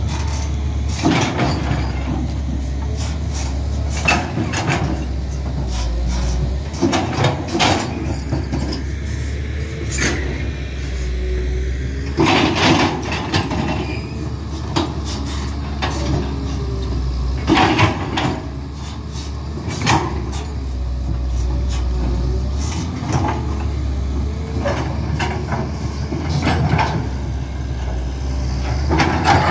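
Wheeled hydraulic excavator's diesel engine running steadily under load as its bucket digs and scrapes rubble and earth, with repeated clanks and bangs of metal on debris, the loudest about 12 and 18 seconds in.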